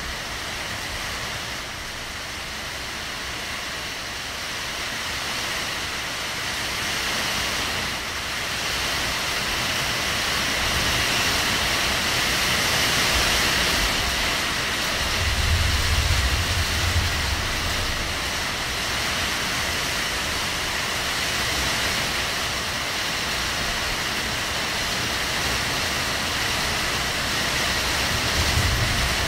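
Steady heavy rain pouring down, an even hiss. A low rumble swells about halfway through and again near the end.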